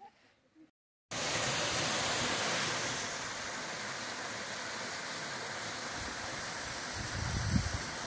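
Small waterfall pouring onto rocks: a steady rush of falling water that comes in suddenly about a second in, with a few low rumbles near the end.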